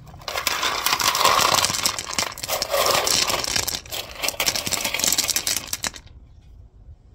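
Loose gravel rattling and crunching, a dense run of small stone clicks that cuts off abruptly about six seconds in.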